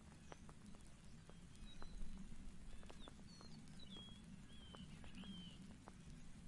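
Faint outdoor ambience: a bird chirping several times in the middle of the stretch, over a low steady rumble with scattered light ticks. No thunderclap is heard.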